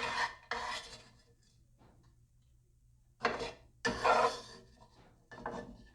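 Kitchen handling noises while tortillas are filled and rolled: about five short rubbing, scraping sounds, two at the start, two close together past the middle and one near the end.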